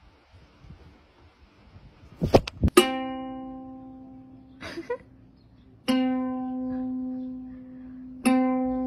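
Ukulele string plucked by a cat's paw: a few sharp knocks, then a single note struck three times, each ringing on and slowly fading.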